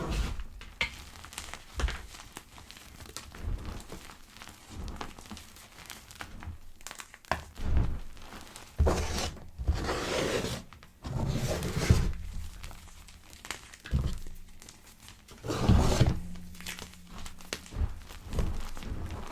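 Pebbles of gym chalk being crushed, crackling and crumbling in irregular bursts and small clicks, with longer, louder crushes about halfway through and again later on.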